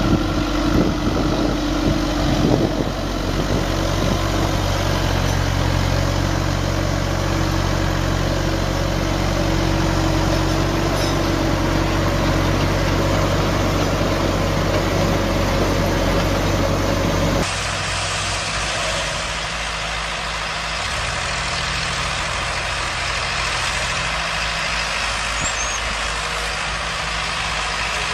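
Engines of heavy machinery running steadily, with an abrupt switch about two-thirds of the way through to a different engine sound, as at a cut between clips.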